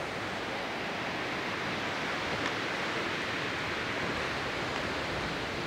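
Sea surf breaking and washing ashore: a steady rush of wave noise, swelling slightly in the middle.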